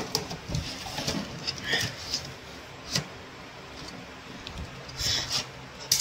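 Hard drive in its hot-swap caddy being slid into the front drive bay of an HP rack server and latched in place: light plastic-and-metal scraping with a few sharp clicks, the clearest about three seconds in and a small cluster near the end.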